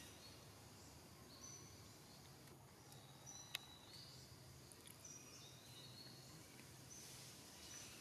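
Faint forest ambience: a low steady hum with scattered short, high chirps, and one sharp click about three and a half seconds in.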